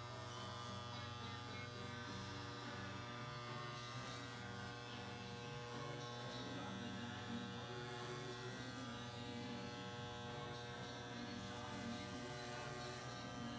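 Corded electric hair clippers buzzing steadily while they are run through hair close to the scalp.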